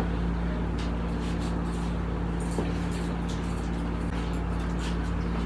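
Steady low machine hum with a few faint clicks, no speech.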